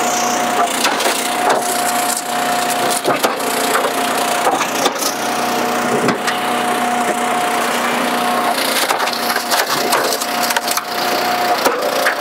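Eastonmade 12-22 commercial hydraulic log splitter running with a steady whine while its box wedge splits a northern red oak round. The wood cracks and splinters with repeated sharp snaps, and the whine breaks off briefly a couple of times near the end.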